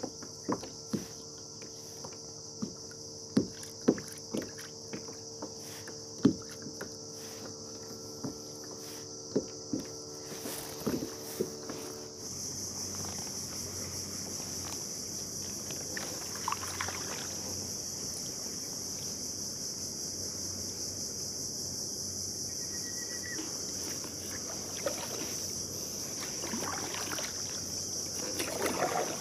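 Insects drone steadily in the mangroves, a constant high whine. For the first dozen seconds, scattered clicks and knocks of fishing tackle against the plastic kayak hull sound over a steady low hum. After that come soft splashes of a kayak paddle stroking through the water.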